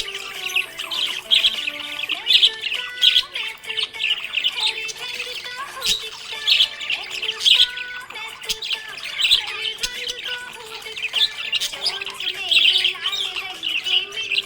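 Budgerigars chirping and warbling without a break, with a simple melody of background music underneath.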